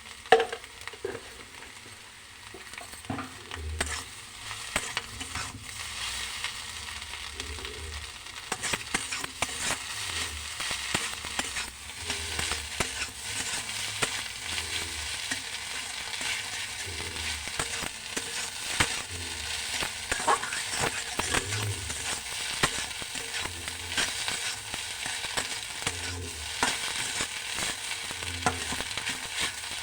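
Food frying and sizzling in a pan while a spatula stirs it, clicking and scraping against the pan, with a sharp knock about half a second in. The sizzle grows stronger after about eight seconds.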